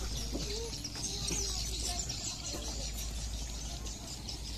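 Birds chirping and twittering, with faint voices of people and a steady low hum underneath.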